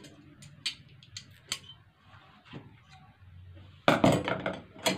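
Light sharp clicks and taps of hands working over fabric on a wooden table, then a louder spell of rustling and clattering handling about four seconds in.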